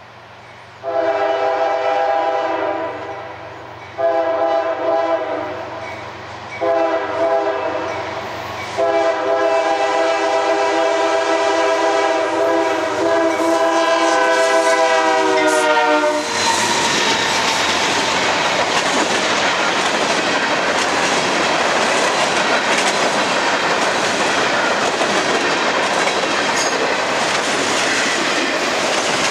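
A freight locomotive's multi-chime air horn sounds three blasts of about two seconds each, then holds a long fourth blast that sags slightly in pitch as the lead locomotive passes. The locomotives and a long string of autorack cars then roll by close, with a steady clattering of wheels on the rails.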